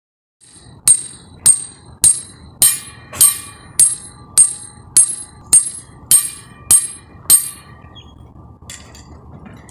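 Hammer blows on a steel drive pin standing in the guide of a scraper plate: twelve sharp metallic clanks, a little under two a second, each ringing briefly, stopping about three-quarters of the way through. The pin is being driven into the compacted soil to make the hole for a nuclear density gauge's source rod.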